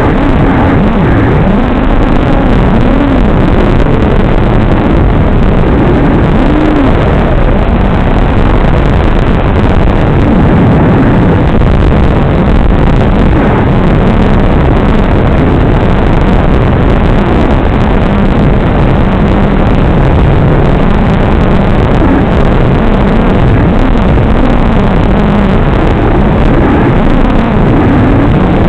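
Cobra Gold Edition brushless motors and propellers of an FPV quadcopter heard on board: a loud, rough buzz whose pitch keeps rising and falling with the throttle.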